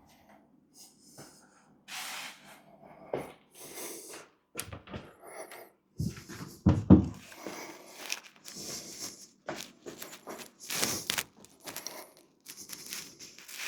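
Irregular handling noises as a heavy door is moved about: scattered knocks, scrapes and rustles, with a heavier thump about seven seconds in.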